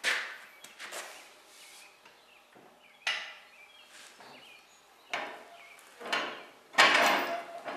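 A floor jack being let down and handled under a tractor: a string of separate metal clunks and scrapes, the loudest and longest near the end.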